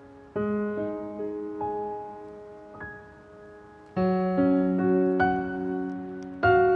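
Slow, soft piano music: sustained chords and single melody notes that ring and fade. The playing gets louder from a chord struck about four seconds in.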